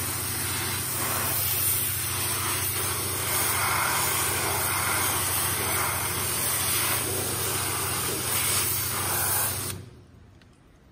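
Yamaha Mate 50 (V50) moped's small two-stroke single-cylinder engine idling steadily, then switched off about a second before the end, cutting out suddenly.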